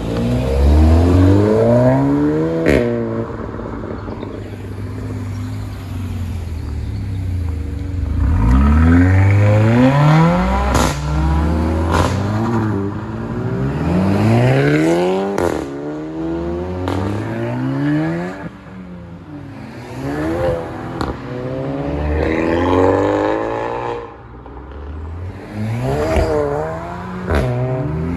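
Several turbocharged hot hatchbacks accelerating hard, one after another, starting with a Seat Leon Cupra's 2.0 four-cylinder pulling away. The engine note rises again and again through the gears, falls back at each shift, and is broken by a few sharp cracks from the exhaust.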